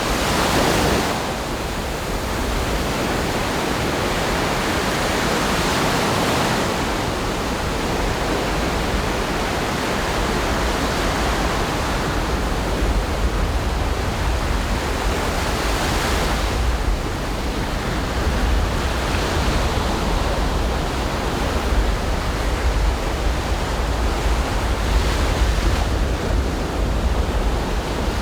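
Ocean surf washing onto a beach: a continuous rush of breaking waves that swells up several times as larger waves break. A deep low rumble joins it in the second half.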